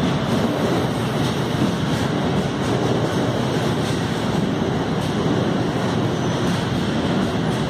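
A GB Railfreight freight train's covered hopper wagons rolling past through an underground station: a steady, continuous rumble of wheels on rail with no letup.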